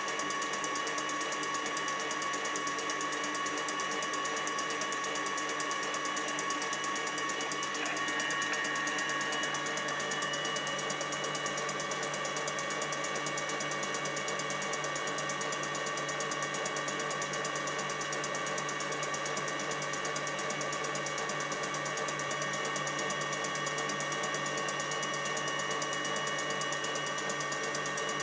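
Electric mixer running steadily at speed, beating egg whites into meringue, with a constant motor whine that grows a little louder about eight seconds in.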